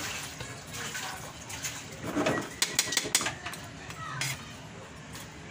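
Metal spatula scraping and clinking against a wok as sliced bottle gourd and flaked fried fish are stirred, with a quick run of sharp clinks about two and a half to three seconds in.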